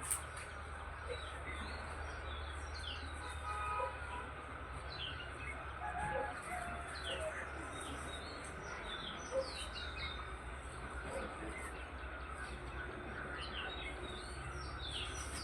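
Many small birds chirping in a dawn chorus: short, quick, falling chirps, scattered and overlapping throughout, over a steady low background hum.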